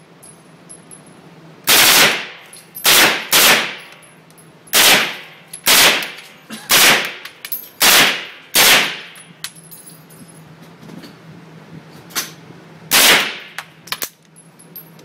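Gunshots fired one at a time at an uneven pace, about nine loud ones over the first nine seconds, then a pause and a few more shots near the end, some of them fainter.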